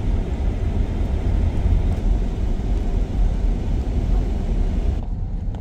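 Steady low rumble of a van driving on the road, engine and road noise heard from inside.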